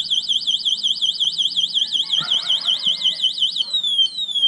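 Kugoo M4 electric scooter's anti-theft alarm sounding, set off from its key-fob remote: a loud, high electronic warble rising and falling about five times a second. Near the end it switches to a few falling whoops.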